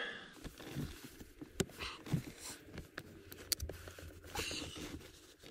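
Hands working a clip-on neck pad onto a car seat's cloth headrest: soft rubbing of fabric with scattered small plastic clicks, a few of them sharp.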